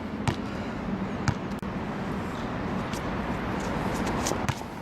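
Steady outdoor background noise like distant traffic, with four sharp knocks scattered through it.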